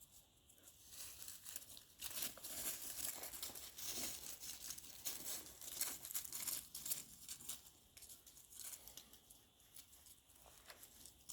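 Faint rustling and crackling made up of many small clicks, strongest from about two to seven seconds in, then tapering off.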